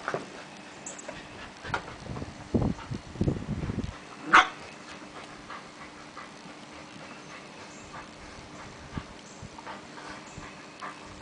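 Border collie puppy vocalising while playing. A cluster of short, soft puppy noises comes about two to four seconds in, then one short, sharp yip, the loudest sound, just after.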